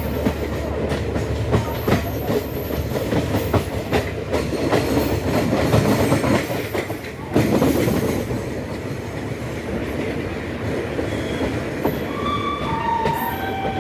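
Indian Railways passenger coach running over the rails, heard from on board: a steady rumble with wheels knocking over rail joints. Short squeals near the end as it slows on its approach to the station.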